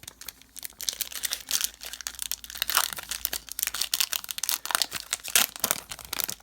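Foil wrapper of a trading-card pack crinkling and crackling as it is handled and torn open.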